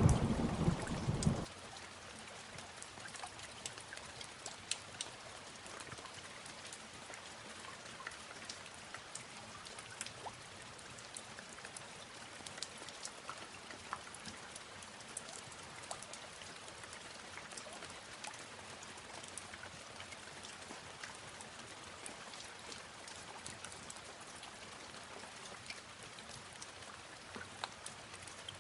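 Rain falling: the loud low rumble of thunder fades out about a second and a half in, leaving steady rain with many scattered drop ticks.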